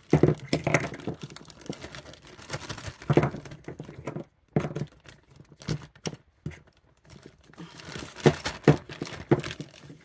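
Small plastic toy figures clicking and knocking together as they are dropped into a zip-top plastic bag, with the bag crinkling as it is handled. The taps come irregularly, several of them sharper than the rest.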